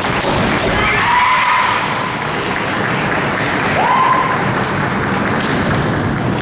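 Kendo fighters' kiai shouts, each rising quickly to a high pitch and held, twice: about a second in and near four seconds in. Underneath are the thuds of stamping feet and hits on a wooden floor and the steady noise of a busy tournament hall.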